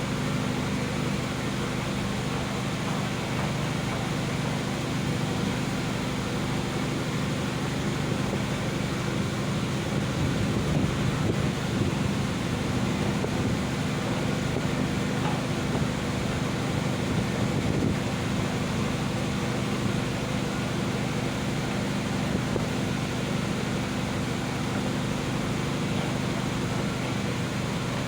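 Steady low drone of a PELNI passenger ship's engines and machinery, with a rushing noise over it that grows a little louder about ten seconds in and eases again about eight seconds later.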